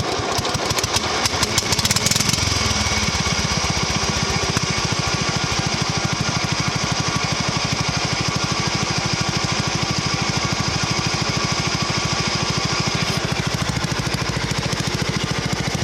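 Riding lawn mower engine running: uneven with sharp crackles for about the first two seconds, then settling into a steady, even beat.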